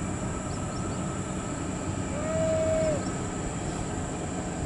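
Volvo FH16 dump truck's 16-litre straight-six diesel running steadily as it drives slowly, a low even rumble. About two seconds in, a brief pitched call rises and falls over under a second and is the loudest thing.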